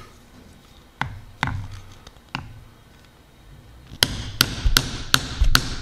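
Mallet striking a diamond pricking iron through leather onto a punch pad over a marble slab, punching stitching holes. Three separate knocks in the first half, then about two-thirds in a quick even run of sharper blows, about two and a half a second.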